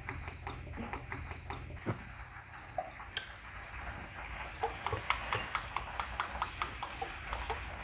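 Hot oil crackling and popping around pork ribs frying in a pan: irregular sharp pops that come thicker from about halfway through, over a faint low steady hum.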